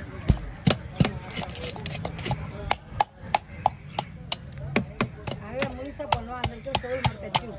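A knife scaling a large fish on a wooden block: quick, sharp scraping strokes, about three a second, with voices in the background.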